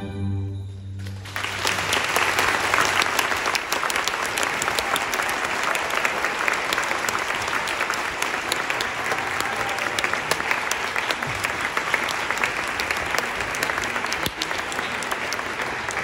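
An orchestra's final held chord dies away in the first second, then an audience breaks into steady applause, many hands clapping.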